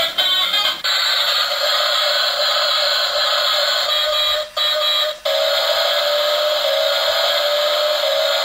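Steady, noisy electronic sound from a battery-powered toy. It cuts out briefly twice around the middle, and a faint tone slowly rises under it in the second half.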